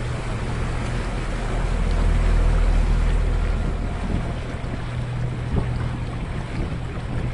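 Open canal tour boat's motor running steadily, a low hum, with water rushing along the hull and wind buffeting the microphone. The low rumble swells for a second or two partway through.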